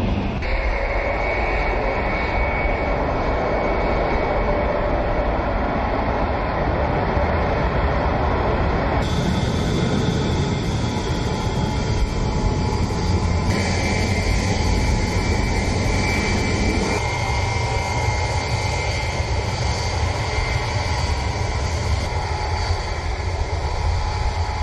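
Aircraft engine noise: a loud, steady rush with high whining tones running through it. Its character shifts abruptly about nine, thirteen and seventeen seconds in.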